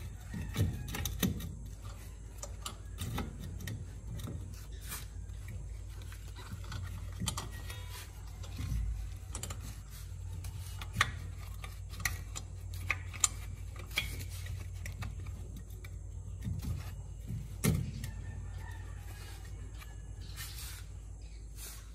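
Scattered metallic clicks and knocks as the loosened rear hub and wheel bearing assembly of a Honda City GM6 is handled and worked off the axle, over a low steady hum.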